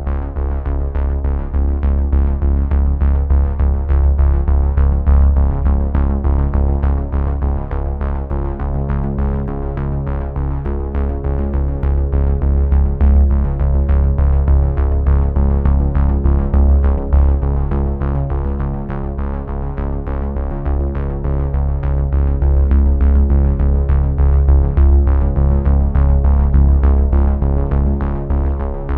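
Background music: synthesizer with a strong bass line and a steady beat.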